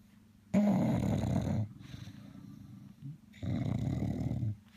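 Adult bulldog snoring in her sleep: two loud, rattly snores, each about a second long, roughly three seconds apart.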